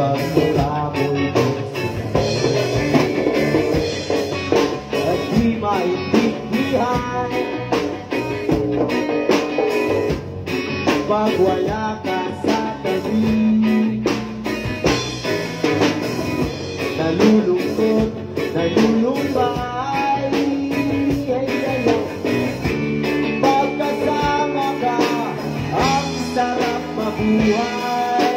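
Live band playing a song on guitars and drums, with a sung lead vocal.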